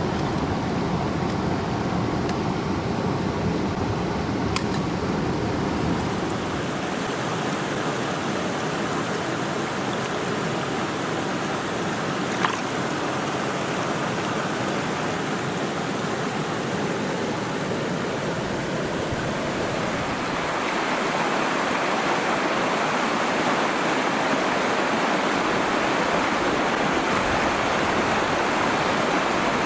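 Rushing mountain stream, a steady hiss of flowing water. The deep rumble fades about six seconds in, and the water grows louder and brighter from about twenty seconds in, with one sharp click near the middle.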